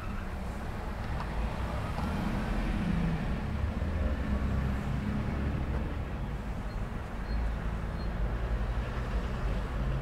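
Road traffic at a busy intersection: car and truck engines and tyres making a steady low rumble. An engine note swells a little louder through the middle.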